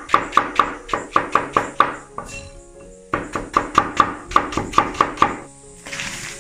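Steel cleaver chopping fresh bamboo shoots on a wooden board: rapid sharp strikes about five a second in two runs with a short pause between. Near the end a splash as the sliced shoots are tipped into a wok of water for blanching, over soft background music.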